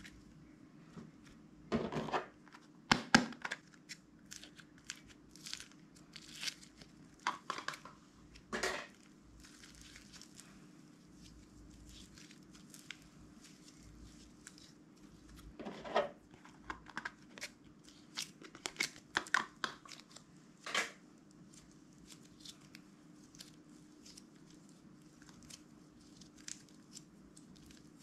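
Hands squeezing, stretching and pulling apart slime, making irregular sticky crackling and tearing sounds in scattered clusters with quiet gaps between.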